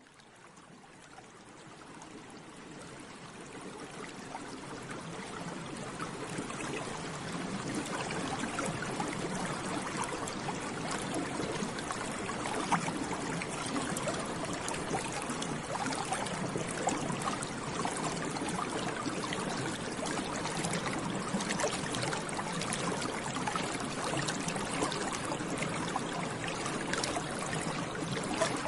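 Water bubbling steadily, a dense stream of small bubbles popping and gurgling. It fades in from silence over the first several seconds, then holds an even level.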